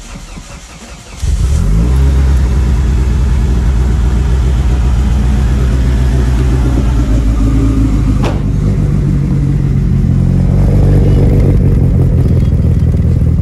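Cold start of an Eagle Talon TSi AWD's turbocharged 4G63 four-cylinder running on E85: the engine catches about a second in, then settles into a steady idle.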